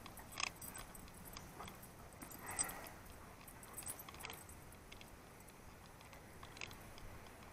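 Faint, sparse clinks of metal dog collar tags, a few separate light clicks, as two dogs shift about sniffing each other nose to nose.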